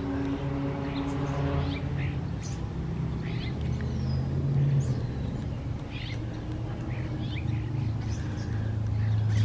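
A group of birds squabbling over food dropped in the road, giving many short, high calls and squeaks, some sliding downward in pitch. Underneath runs a steady low hum, like an idling car engine.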